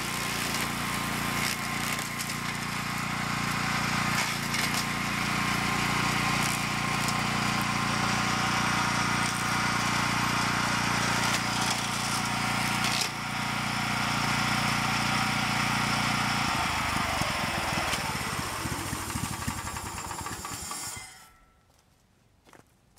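The engine of a 1998 DR all-terrain brush mower running steadily under load as it cuts brush. About three-quarters of the way through it is shut off, slows and dies away to silence near the end.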